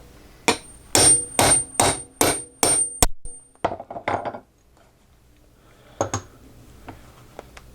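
A hammer drives a steel hollow hole punch through a linen buffing wheel: seven quick blows, each with a high metallic ring, followed by a few lighter taps and a single blow about six seconds in.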